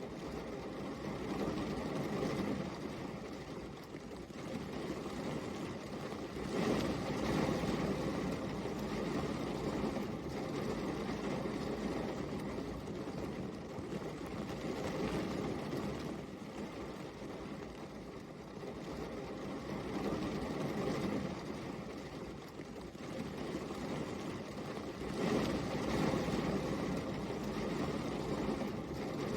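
Rain falling steadily, an even hiss that swells and eases in loudness every several seconds.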